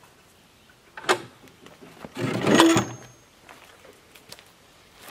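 Hinged wooden side panels of a tractor carry-all being folded down: a knock about a second in, then a longer, louder wooden clatter a second later.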